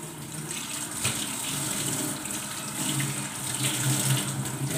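Water running steadily from a kitchen tap, with a low hum underneath that grows stronger in the second half.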